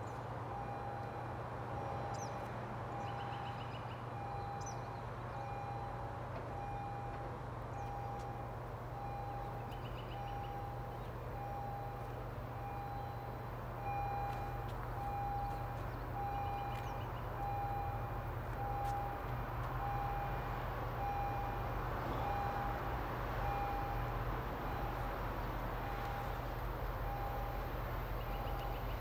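Electronic warning beeper sounding a steady, evenly spaced beep a little more than once a second. Under it, the low hum of an approaching commuter train grows a little louder about halfway through, with a few faint bird chirps.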